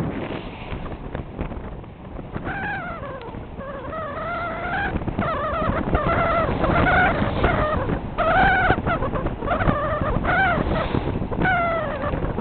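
Wind and water rushing past a small sailboat under way. Over it, a high whine comes and goes from a couple of seconds in, wavering up and down in short phrases.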